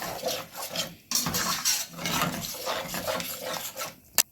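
A spoon stirring chicken stock into a thickened onion-and-flour base in a pan, with irregular scraping and sloshing. There is a short break about a second in and a single sharp click near the end.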